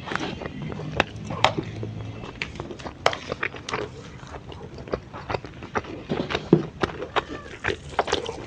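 Close-miked chewing and crunching of food, a fast irregular run of crisp bites and wet mouth clicks.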